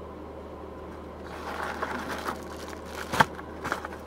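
Crinkling and rustling of a yellow padded mailer being torn open and its contents pulled out, starting about a second in, with one sharp crack of the packaging about three seconds in.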